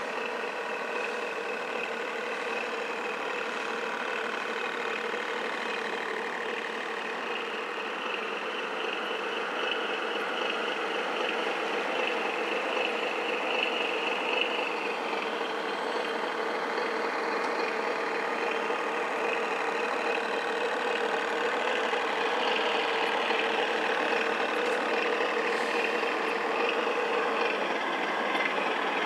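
Radio-controlled model boats running on the water: a steady engine-like drone with one held tone, growing slightly louder toward the end as a boat comes closer.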